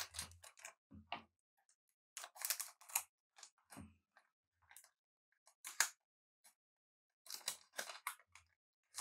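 Trading cards and their foil pack being handled by hand: short dry rustles and clicks in separate bursts, as cards are slid, flipped and set down.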